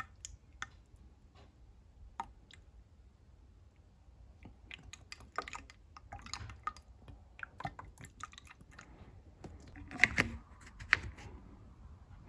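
Small clicks and taps of plastic being handled while brake fluid is poured from a bottle into a new master cylinder's plastic reservoir, with two sharper knocks near the end.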